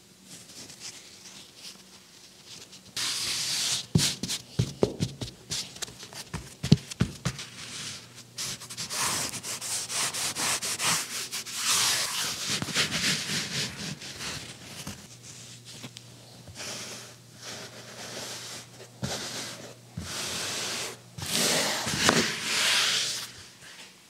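Hands smoothing and rubbing a sheet of canvas down onto glue-coated wooden tambour slats, a rough brushing sound in repeated strokes, laying the cloth backing that holds the slats together. A few sharp knocks come between about four and seven seconds in.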